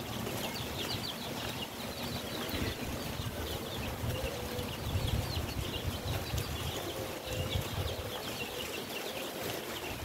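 Chicks peeping: many short, high peeps in quick runs, over a low steady rumble.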